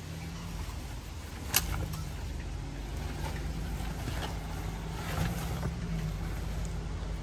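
Suzuki Jimny engine running steadily at low revs as the vehicle crawls down a rough track. A sharp knock about one and a half seconds in, with a few fainter clicks later on.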